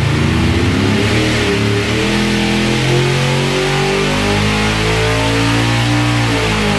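Heads-and-cam 6.2 L LS3 V8 with long-tube headers making a full-throttle engine-dyno pull, its note rising steadily from about 3,000 to 7,000 rpm, then falling near the end as it is let off.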